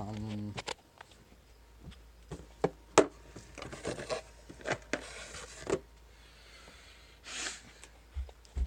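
A hummed note that stops about half a second in, then scattered clicks, knocks and rustling as things are handled, with one sharp click about three seconds in the loudest.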